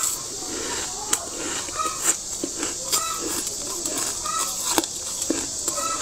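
Thick freezer frost being scraped and broken away, with sharp cracks and crunches about once a second over a steady high hiss.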